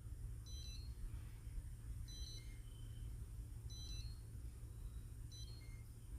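Beko fridge's alarm beeping by itself: four short high beeps, about one every second and a half, over a low steady hum. This unprompted beeping is the fault the owner complains of.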